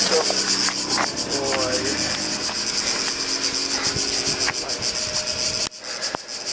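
Cicadas buzzing loudly in the pines, a dense pulsing high-pitched chorus, over a car engine running. The buzz cuts off abruptly about a second before the end.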